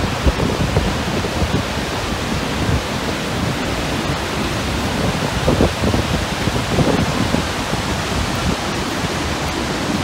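Waterfall with a heavy flow of water pouring over a rock lip, heard close up: a loud, steady rushing noise, heaviest in the low end.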